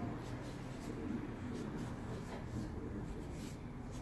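Marker writing letters on paper: a run of short, irregular scratching strokes.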